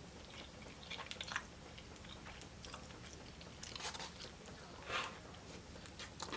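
A person chewing a mouthful of baked spaghetti close to the microphone: faint chewing and mouth noises, with a few louder smacks about one, four and five seconds in.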